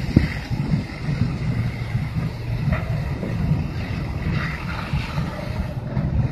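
Wind buffeting a phone microphone, a choppy low rumble, with a brief knock just after the start.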